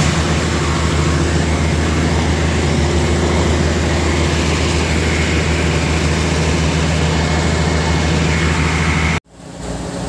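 Fire truck's engine running steadily close by, a heavy low hum under a noisy rush. It cuts off suddenly about nine seconds in.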